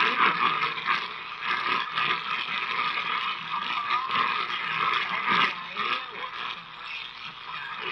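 Shortwave static and hiss from a portable receiver's small speaker, a weak signal rising and fading, with the station's voice coming through only faintly here and there.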